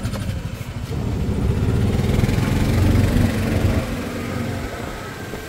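Golf cart driving along a road: its motor and road noise, swelling about two to three seconds in, then easing off.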